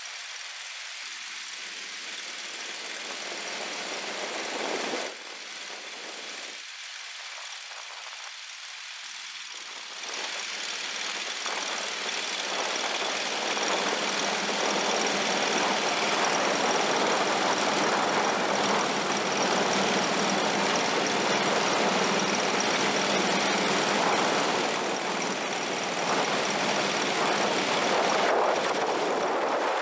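Longtail mud motor running as the duck boat moves along the river, a steady engine noise that gets louder about a third of the way in.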